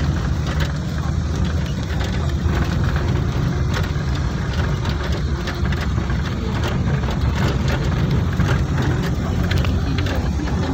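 Vehicle engine and tyre noise heard from inside the cabin while driving on a rough dirt road: a steady low hum with frequent small rattles and knocks.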